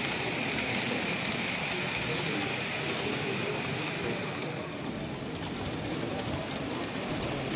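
Model train running past on the layout: a steady rolling rattle with quick clicks from the wheels, fading out about four to five seconds in. Indistinct crowd chatter runs underneath.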